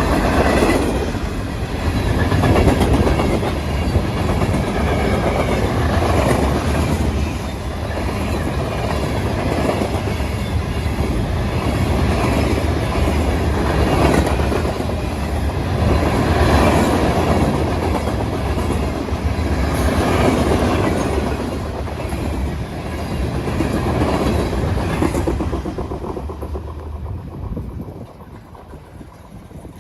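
Norfolk Southern freight train's cars rolling past with a steady rumble and clickety-clack of the wheels, swelling every few seconds. The sound drops away about 26 seconds in.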